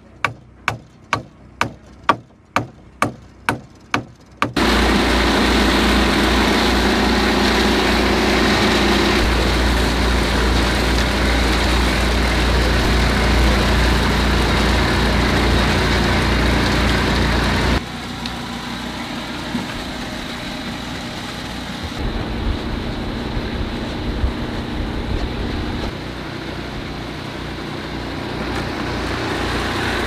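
A claw hammer drives nails into plywood formwork, about ten sharp blows at roughly two a second. The hammering cuts off and the steady running of a small engine on a portable concrete mixer takes over, dropping to a lower level a little past halfway.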